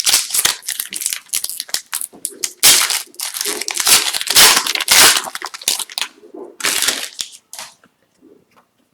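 Plastic wrapper of an Upper Deck Series 2 hockey card pack crinkling and tearing as it is opened by hand: dense crackling, loudest about three seconds in and again around four to five seconds, dying away near the end.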